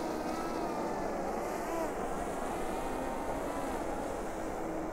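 MokWheel Mesa Plus ST fat-tire e-bike riding on pavement: a steady hub-motor whine that wavers slightly in pitch, over tyre and wind noise.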